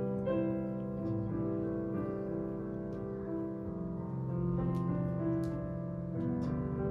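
Piano playing slow, sustained chords with no voice over them.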